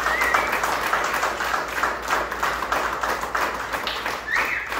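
Audience applauding, dense clapping throughout, with a short vocal whoop right at the start and another about four seconds in.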